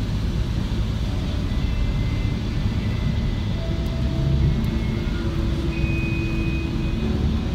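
Steady low rumble of road and engine noise inside a moving car. A few faint held tones come in over it in the second half.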